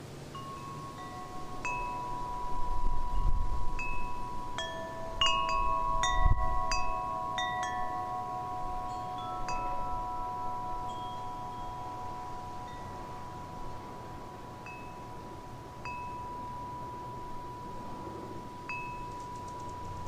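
Wind chimes ringing, struck at irregular moments, with several tones overlapping and each ringing on for many seconds. A low rumble swells underneath from about two to seven seconds in.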